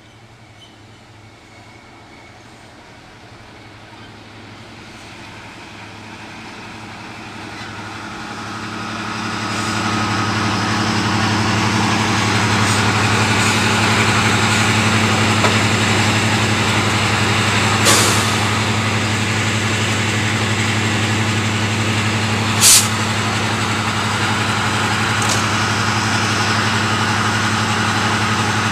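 Class 55 Deltic diesel locomotive's twin Napier Deltic two-stroke opposed-piston engines, growing louder as the locomotive draws up alongside and then holding a steady, deep hum. Short sharp hisses of air sound about 18 s and 23 s in, the second the loudest.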